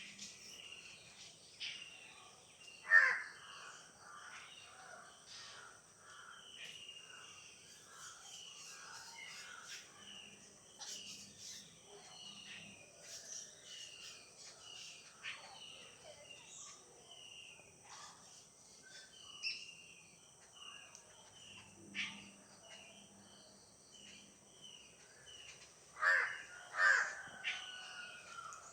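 Crows cawing: one loud caw about three seconds in and two more near the end, over a continuous chorus of small bird chirps and a steady high insect hiss.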